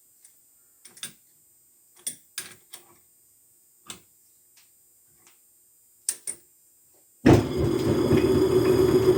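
Metal tools and machine parts clicking and clunking as they are handled. About seven seconds in, the Logan metal lathe is switched on and its motor and spindle start suddenly, then run with a steady hum.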